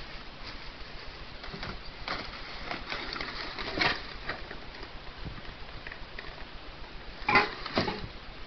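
A plastic bag rustling as a hand rummages among beer cans and glass bottles, with light clinks and knocks of the containers. The loudest knock comes about midway, and two more come close together near the end.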